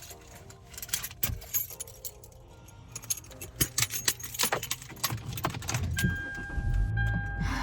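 Keys jangling and clicking in the hand. About six seconds in, a steady electronic chime tone starts, with a low rumble beneath it.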